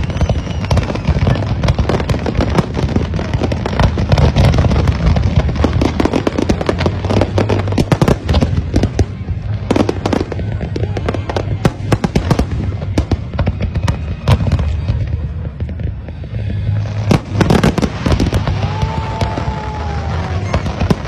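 Fireworks display: a dense, continuous barrage of aerial shell bangs and crackles, rapid sharp reports one after another.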